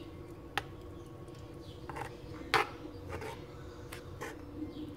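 Metal spoon stirring wet salsa in a volcanic-stone molcajete: scattered clinks and scrapes of the spoon against the stone, the loudest about two and a half seconds in, over a faint steady hum.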